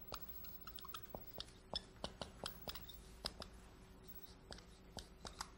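Dry-erase marker writing on a whiteboard: a string of faint, irregular taps and short scratches as the strokes are made.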